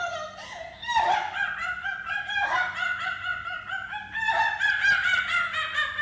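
Human voices making high, pitched wailing cries, each call sliding down in pitch. Several overlap, with new cries starting about a second in and again around two and a half and four seconds in.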